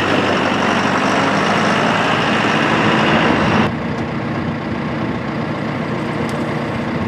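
2022 John Deere 5100E tractor's turbocharged four-cylinder diesel running as the tractor drives across gravel. About three and a half seconds in, the sound drops suddenly to a quieter, steady engine run.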